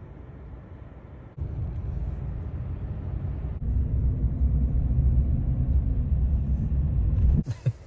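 Low rumble of a car driving, heard from inside the cabin. It steps up in loudness about a second and a half in and again midway, then drops away suddenly near the end.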